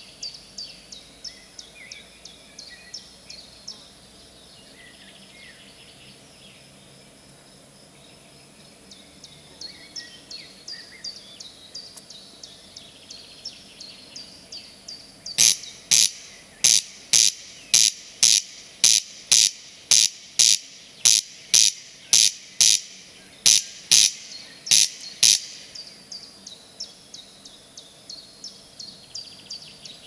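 Corncrake (Crex crex) calling its dry, rasping 'crex crex', a loud, evenly paced run of about two dozen strokes, two or three a second, beginning about halfway through and lasting some ten seconds.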